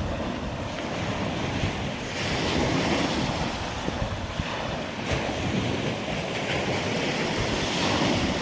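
Gulf of Mexico surf washing onto the beach, with wind buffeting the microphone. The wash swells and fades every few seconds.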